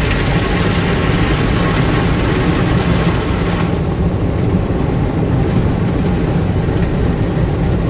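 Automatic gantry car wash running over the car, heard from inside the cabin: a steady mechanical drone under a hiss of spray. About three and a half seconds in, the hiss thins and the low drone carries on.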